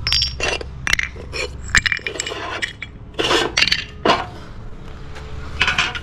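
Bird-feeding trays and grain being handled: an irregular run of clinks, clicks and short scrapes, with a louder scraping burst about three seconds in.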